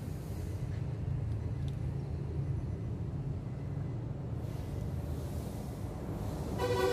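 Steady low vehicle rumble, with a short horn toot near the end.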